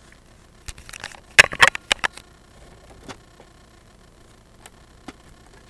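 Plastic Lego pieces clicking and knocking together as the model is handled: a quick clatter of sharp clicks about a second in, then a few faint single clicks.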